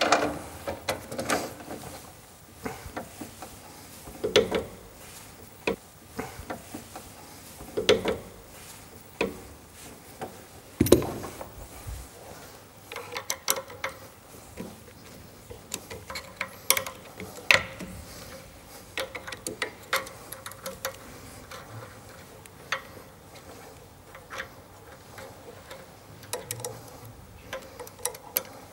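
Hand tools and metal pulley parts being handled while the pulleys are refitted with taper bushes for a toothed-belt drive: scattered, irregular clicks, clinks and knocks, with one heavier knock about eleven seconds in.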